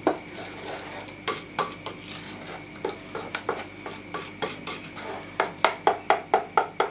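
Wooden spoon stirring fruit pulp and caster sugar in a glass bowl to dissolve the sugar, knocking and scraping against the glass. The knocks are irregular at first, then from about five seconds in come loud and even, about five a second.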